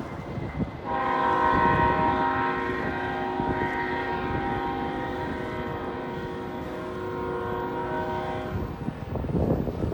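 A long horn blast: several steady tones sounding together as one chord, starting abruptly about a second in and cutting off near the end, with wind buffeting the microphone underneath.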